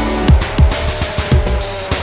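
Loud electronic dance music with heavy kick drums and a deep bass line.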